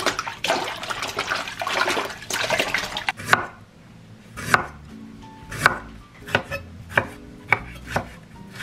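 Water splashing as bok choy is swished by hand in a stainless steel bowl. About three seconds in, this gives way to a chef's knife slicing through fresh ginger root onto a wooden cutting board: single sharp knocks about a second apart, coming quicker near the end.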